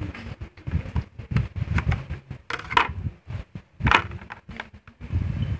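Black plastic packaging tray crackling and creaking as a neckband earphone and its cable are worked free of it by hand, in a run of irregular clicks and crinkles.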